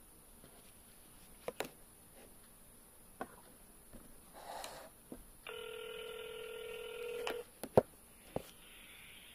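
Flip phone being handled: scattered clicks of buttons and handling, then a steady ringing tone from the phone's speaker for about two seconds, the call ringing through at the other end, followed by two sharp knocks.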